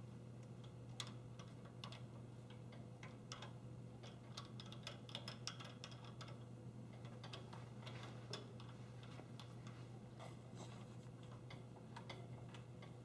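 Faint, irregular small metallic clicks and ticks from a drill press chuck being twisted by hand to free the bit, the chuck a little stiff. A steady low hum runs underneath.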